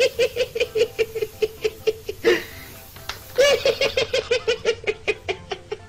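Two bouts of rapid, high-pitched laughter, each loudest at the start and trailing off, over background music.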